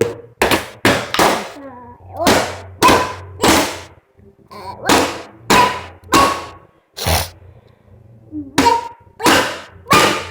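A household container (a 'pote') struck like a toy drum: loud bangs in uneven groups of two to four, each ringing briefly.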